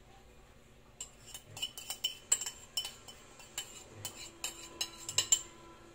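A spoon clinking and scraping against a bowl as the bowl is emptied into a plastic container: a quick run of irregular sharp taps starting about a second in and stopping shortly before the end.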